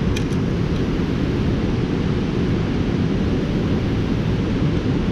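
Steady low rushing noise of river water pouring over a low dam, mixed with wind buffeting the microphone, with a couple of light clicks just after the start.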